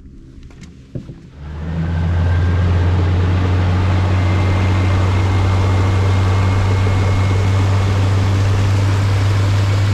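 Yamaha 70 hp outboard motor on a flats skiff: after a single knock about a second in, it comes up to speed over about a second and then runs steadily at high speed, a loud, even low engine note under the rush of wind and water as the boat runs across the bay.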